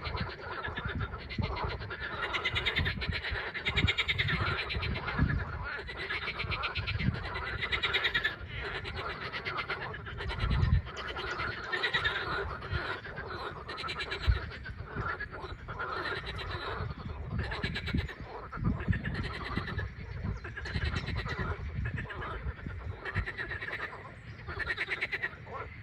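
A chorus of frogs calling, many fast-pulsed croaks overlapping without a break. Low rumbles and thumps come and go underneath.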